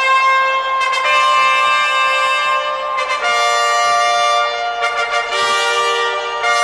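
Music: a brass fanfare of long held chords. The chord changes about a second in, again just past three seconds, and once more past five.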